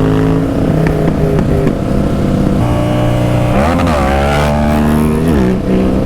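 Husqvarna 701's single-cylinder engine under way, its note stepping in pitch as the throttle and gears change, with a rise and fall about three and a half seconds in. Wind rumbles on the helmet microphone.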